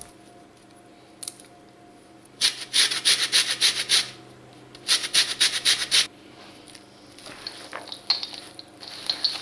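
Lemon peel being grated on a metal box grater: two runs of quick rasping strokes, about a second and a half and then a second long. Softer scattered rustling follows near the end as the grated carrot and nuts are handled in the steel bowl.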